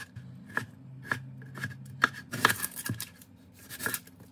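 Chef's knife chopping tomato on a wooden cutting board: about seven separate knocks of the blade on the board, roughly two a second.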